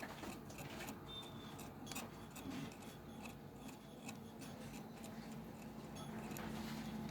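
Faint scattered clicks and ticks, like small tools or parts being handled, over a steady low hum that grows a little louder near the end.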